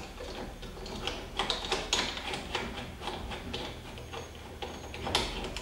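Hand rivet-nut tool being unthreaded from a freshly set rivet nut: a run of small metallic clicks and scrapes, loudest about two seconds in and again near the end.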